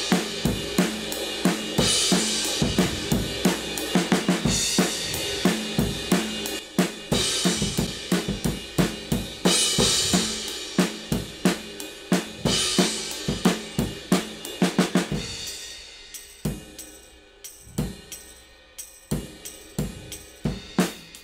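A looped drum-kit overhead recording plays back through compressor and saturation plugins: kick, snare and hi-hat in a steady groove, with a cymbal crash about every two and a half seconds. About fifteen seconds in, the cymbal wash drops out and the loop turns quieter and duller.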